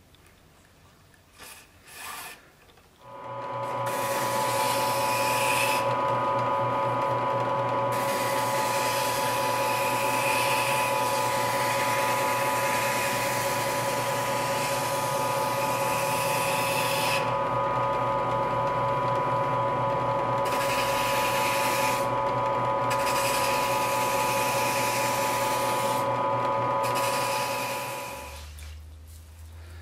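Benchtop drill press motor running with a steady hum and whine. It starts about three seconds in and winds down near the end. A hiss comes and goes several times while it runs.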